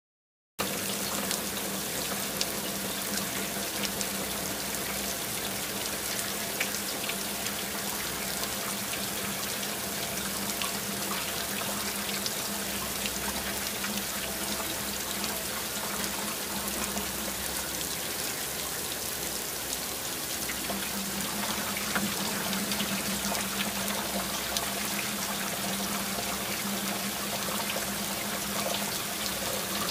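Kitchen tap running steadily into a bowl in a stainless steel sink while hands rinse pansit-pansitan greens in the water, with small splashes. The water starts abruptly about half a second in.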